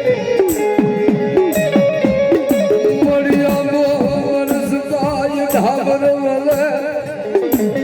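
Gujarati devotional folk music, instrumental between sung lines: a melody instrument plays sliding, ornamented notes over a held drone, with a steady beat of percussion strikes about once a second.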